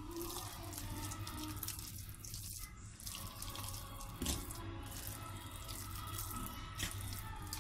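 A spatula stirs a soft, wet mash of sweet potato loosened with milk and cream in a glass bowl, squelching and scraping against the glass, with a couple of light knocks. A low steady hum runs underneath.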